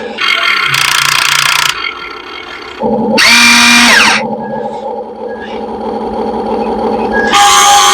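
RC excavator's electric motors running with a steady hum, broken by three bursts of louder whining and hissing as the machine works, one with a pitch that rises and falls back.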